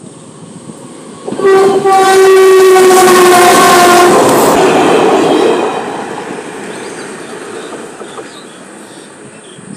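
Electric locomotive horn sounding one long, loud blast of about three seconds, starting about a second and a half in, over the rushing rumble and rail-joint clatter of a freight train passing close by. The train noise falls off after about five and a half seconds to a lower rumble.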